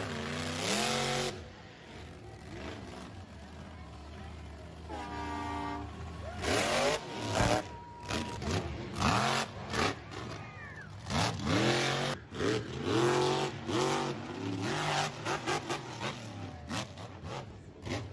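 Monster truck engines revving hard in repeated bursts, the pitch sweeping up with each rev.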